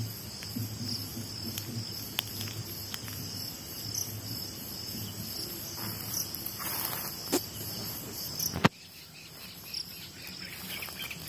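Crickets and other night insects chirring steadily, over a low background rumble. A sharp click comes about nine seconds in, and the rumble drops away after it.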